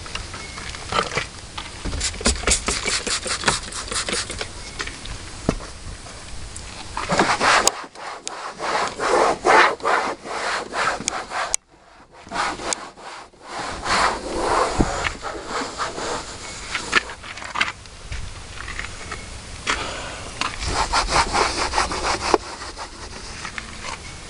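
Hand scrubbing or wiping on a truck's interior trim, rubbed back and forth in several spells of quick, even strokes with short pauses between them.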